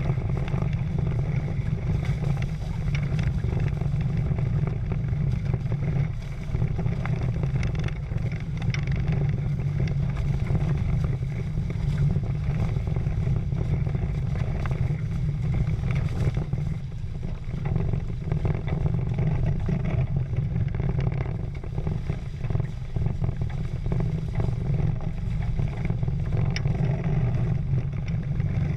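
Wind buffeting the GoPro and water rushing and splashing past the hulls of a Prindle 16 catamaran under sail: a steady deep rumble with the hiss of spray.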